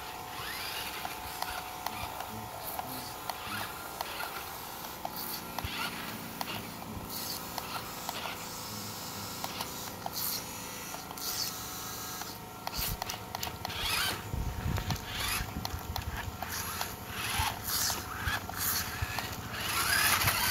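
Small electric RC rock-crawler truck driving over rough concrete: a faint motor and gear whine with scattered clicks and scrapes from its tyres, getting louder in the last few seconds as it comes up close.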